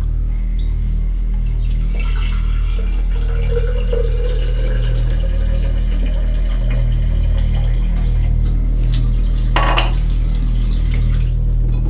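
Kitchen tap running into a glass jug, a steady rush of water whose pitch climbs slowly as the jug fills. A short sharp knock comes near the end.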